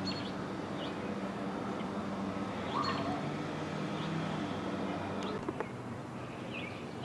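Outdoor ambience: a steady low hum with a few faint, brief bird chirps.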